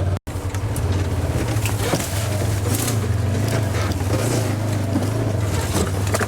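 Vehicle engine running steadily under way as it is driven over rough ground, a constant low drone with scattered rattles and knocks on top. The sound drops out for an instant just after the start.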